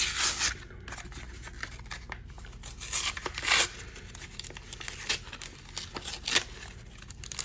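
Trading card blister pack packaging being handled and torn open by hand: irregular bursts of plastic and foil crinkling and tearing, loudest near the start and about three seconds in.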